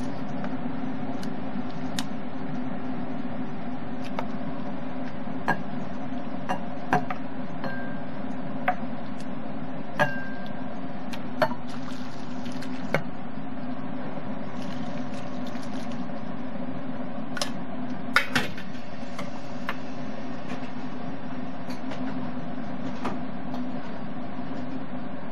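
Chopsticks and noodles clinking against a ceramic bowl, a few sharp clinks with a brief ring. About halfway through, chicken broth is poured from a pot into the bowl. A steady low hum runs underneath.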